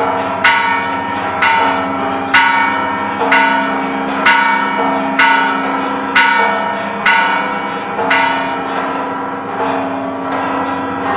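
The Bell of Dolores, a bronze bell, rung by rope about once a second, each strike ringing on into the next.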